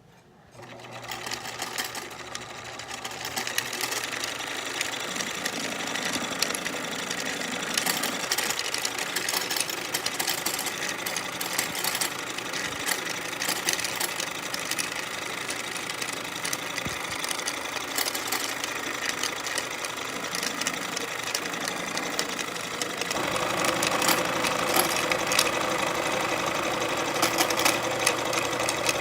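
Electric sewing machine motor running steadily at speed, spinning the bobbin winder to wind thread onto a bobbin. It builds up over the first few seconds and gets louder about 23 seconds in.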